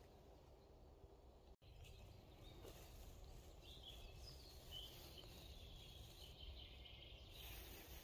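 Near silence: faint forest ambience with a low rumble, and faint distant bird calls in the middle.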